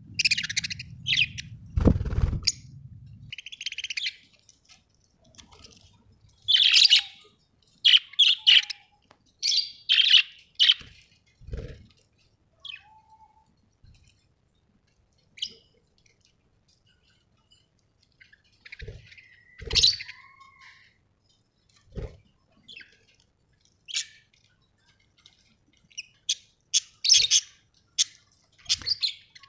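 Pet budgerigars chirping and squawking in short, scattered calls, with a few knocks in between, the loudest about two seconds in.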